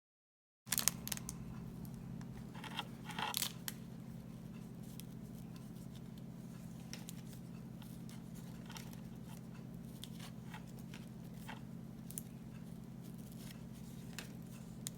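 Cellophane wrapper of a 1990 Fleer basketball card rack pack crinkling and tearing in short bursts, about a second in and again around three seconds, then faint ticks and rustles of cards being handled over a steady low hum.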